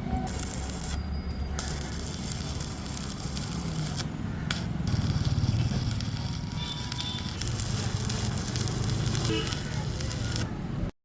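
Electric arc welding on iron, a steady crackling sizzle with two brief breaks in the arc. It stops suddenly near the end.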